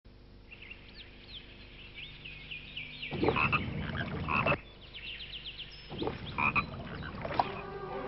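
Pond ambience: frogs croaking in two loud spells, with short high chirping calls throughout.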